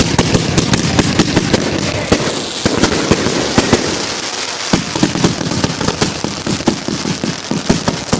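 Aerial fireworks going off in rapid succession: a dense barrage of crackling pops and bangs, easing briefly a little before halfway through and then picking up again.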